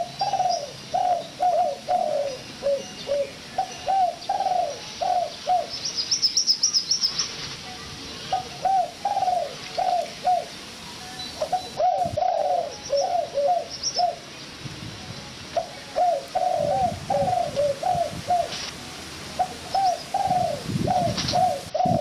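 Bird calling: repeated phrases of short, arched, low-pitched notes, several a second, with brief pauses between phrases. A higher, thin chirping joins briefly about a quarter of the way through.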